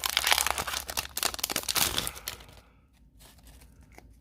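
Foil wrapper of a Pokémon card booster pack crinkling and being torn open by hand, a dense crackle that stops about two and a half seconds in, followed by a few faint clicks.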